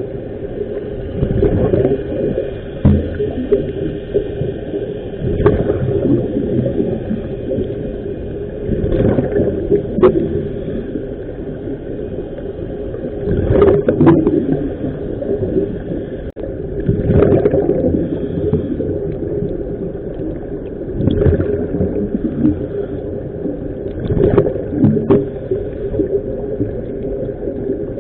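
Muffled underwater sound of air bubbles gurgling up in swells every three to four seconds, over a steady hum.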